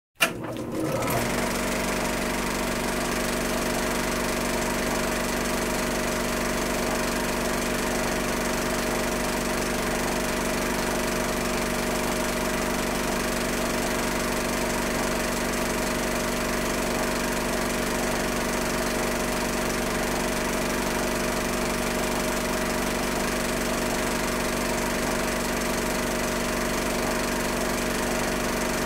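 Film projector running: a steady mechanical whirr and clatter that starts suddenly about a second in and holds unchanged.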